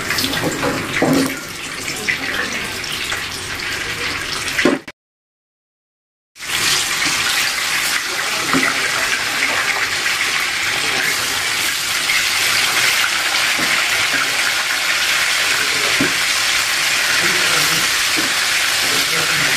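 Tofu cubes deep-frying in hot oil in a wok: a loud, steady sizzle, with a few clacks of a spatula against the pan. Before that, the sizzle of the previous batch with spatula clatter as fried pieces are lifted out; the sound cuts out for about a second and a half a few seconds in.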